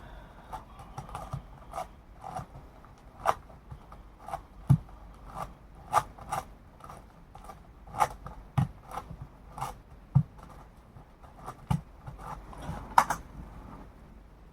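Layers of an 8x8 Rubik's cube turned by foot: irregular plastic clicks and scrapes, about one or two a second, with a few low thuds among them.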